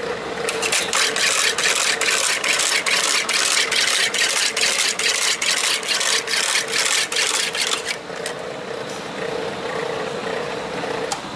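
Graphotype embossing machine running: its electric motor hums steadily while the die mechanism punches characters into a metal plate in a fast, evenly spaced run of clacks, about three or four a second. The clacks stop about 8 seconds in, and the motor hum carries on.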